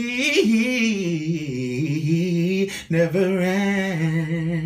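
Solo male voice singing gospel a cappella, drawing out long melismatic notes with vibrato, with a short break for breath about three seconds in.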